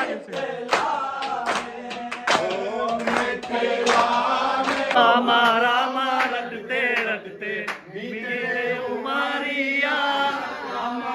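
Several men singing and chanting a Holi song together, their voices held and wavering. Sharp percussive hits sound through about the first half.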